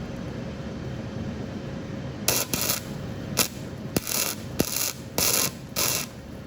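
Wire brush scrubbing flux slag off a fresh flux-core weld on a broken exhaust stud, in about seven short rasping strokes with a couple of sharp metal clicks among them.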